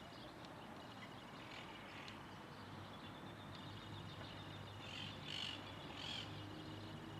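Birds calling faintly over a steady hiss, with three short calls close together about five to six seconds in.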